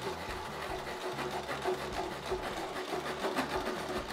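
Cordless reciprocating saw cutting through a pine 2x6, the blade rasping steadily back and forth in the wood.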